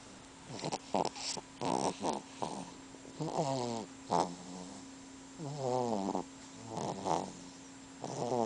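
A sleeping baby snoring. The first couple of seconds hold short noisy breaths, then come longer pitched snores that waver in pitch, one every second or two.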